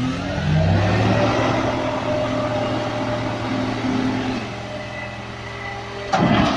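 A motor vehicle engine revs up, its pitch rising in the first second, then runs steadily under load. About six seconds in, a sudden loud crash-like noise breaks in.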